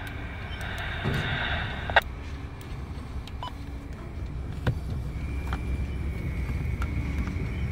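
CSX freight train cars rolling past through a grade crossing: a steady low rumble with scattered sharp clacks, the sharpest about two seconds in. A faint steady high tone joins about five seconds in.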